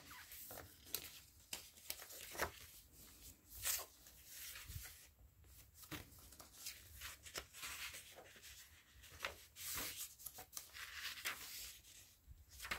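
Paper pages of a handmade hardcover junk journal being turned and handled: soft, irregular paper swishes and rustles.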